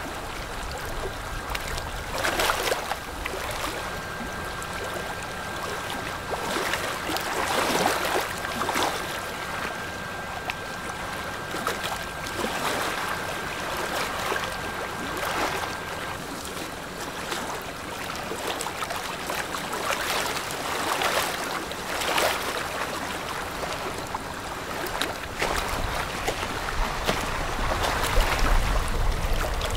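River water lapping and splashing in repeated surges over a steady rushing background. A faint steady high tone runs through about the first half.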